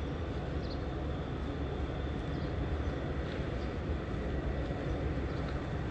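Steady low rumble and hiss of a large indoor hall's background noise, strongest in the bass, with a faint thin steady whine above it and no distinct events.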